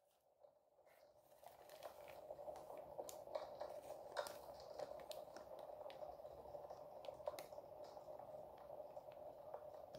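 Faint crinkling and light clicks of a sealed plastic bag of model-kit sprues being handled with nitrile-gloved hands, over a steady faint hum. It is silent for about the first second and a half.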